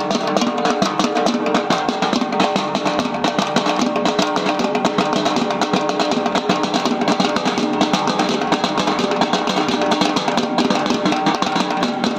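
Dhak barrel drums beaten with sticks in a fast, unbroken rhythm, mixed with music holding sustained pitched tones.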